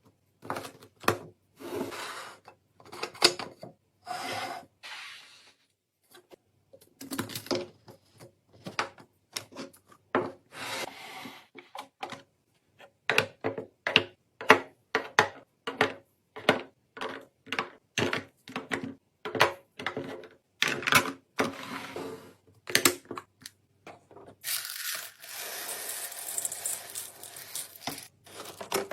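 A long run of short clicks, taps and light clatters as food items and containers are handled and set down while a fridge is restocked. Near the end comes about four seconds of steady hissing noise.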